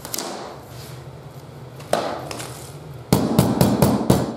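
Two soft knocks of laminate planks being fitted together, then a quick run of about six or seven sharp taps, some five a second, from a rubber mallet striking a scrap laminate piece to knock a glueless click-lock plank into place.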